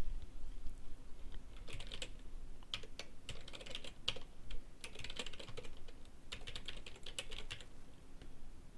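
Typing on a computer keyboard: several quick runs of key clicks with short pauses between them.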